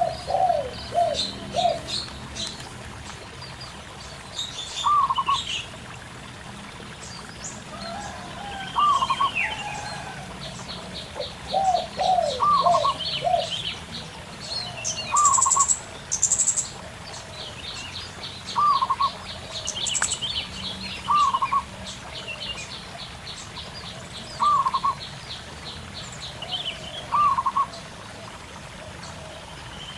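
Wild doves cooing (zebra doves and spotted doves) among other birds' chirps and fast trills, with one short call repeated about every two and a half seconds. A faint trickle of a stream runs underneath.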